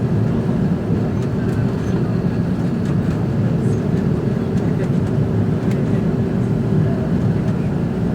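Steady cabin roar of an Airbus A330-200 airliner, a dense low rumble with a faint steady hum running through it.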